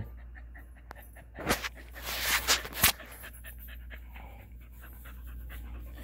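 Scottish terrier panting, in short breathy bursts and then a quick faint rhythm of breaths, with one sharp click a little before three seconds in.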